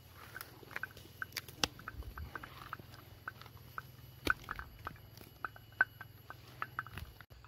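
Cow grazing close by: irregular crisp snaps and tearing of grass as it crops with its mouth, with chewing in between.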